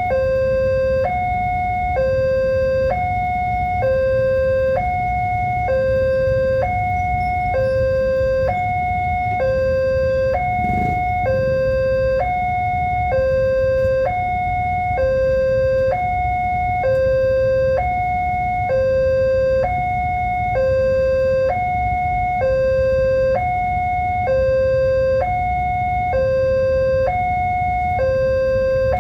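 Electronic two-tone warning alarm of a railway level crossing, alternating evenly between a lower and a higher tone, about one high-low cycle every 1.6 seconds, signalling that a train is approaching. A steady low rumble runs underneath.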